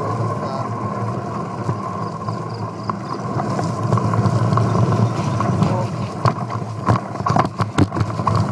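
Riding noise from a mountain bike descending a dirt trail: a steady rush of wind on the microphone with the bike rattling, and sharp knocks and clatters from about six seconds in as it goes over rough ground.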